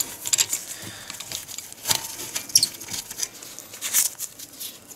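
Ratchet wrench clicking in short, irregular runs with small metal clinks as it backs out a brake caliper bolt.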